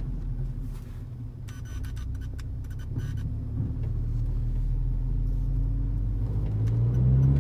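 Engine and road drone of a 2016 Mercedes-AMG GLA 45's turbocharged 2.0-litre four-cylinder, heard inside the cabin: a steady low hum that rises in pitch and grows louder near the end. A few light clicks come about two seconds in.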